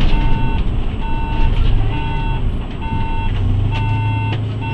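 A city bus's electronic warning beeper beeping steadily, about once a second, over the low rumble of the bus's engine as it comes to a stop.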